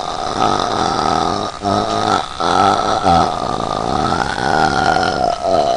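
A girl doing long, deliberately forced burps, several in a row with brief breaks between them. The longest runs about two seconds.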